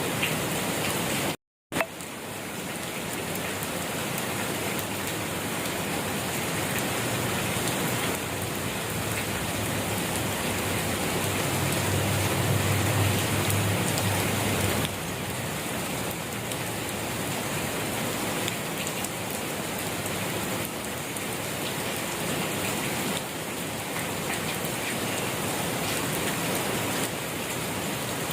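Steady rain falling and pattering on surfaces. About a second and a half in, the sound cuts out completely for a moment, then returns with a click and swells back up. A low rumble sits under the rain for a couple of seconds in the middle.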